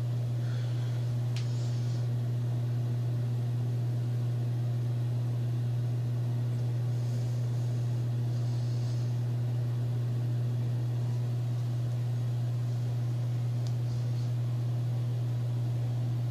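A steady low hum that does not change, with faint brief hisses about a second in and again near the middle, when a hand is at the fitting on top of the mini boiler.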